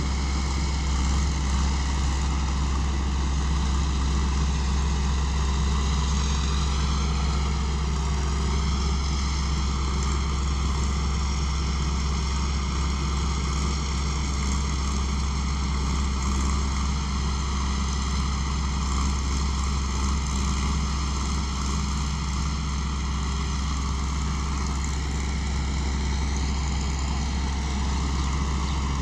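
Kaset Pattana rice combine harvester running steadily while harvesting: a deep engine drone under a high whine from the threshing machinery. The whine wavers in pitch about six seconds in and again near the end.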